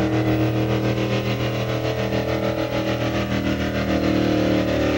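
Gasoline pickup truck engine running under heavy load as the truck drags a weight-transfer pulling sled, its pitch holding fairly steady throughout.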